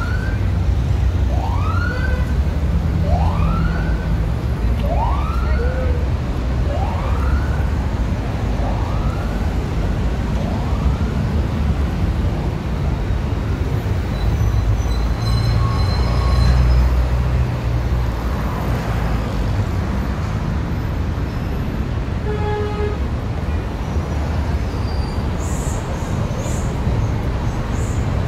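An emergency vehicle siren with quick rising-and-falling sweeps, about one a second, fading away over the first ten seconds or so, over the steady rumble of city traffic. A brief pitched tone sounds a little over twenty seconds in.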